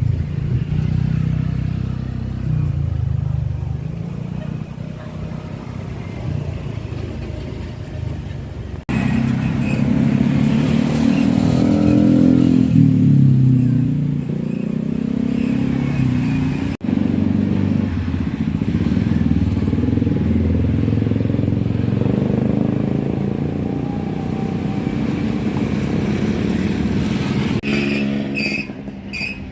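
Road traffic, mostly motorcycle engines running and passing, with the sound changing abruptly twice. Near the end comes a run of short high-pitched pips, about two a second.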